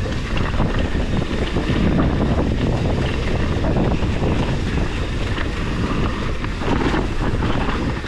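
Wind buffeting the microphone on a mountain-bike descent of a loose dirt trail, with tyre noise and scattered knocks and rattles from the bike going over bumps.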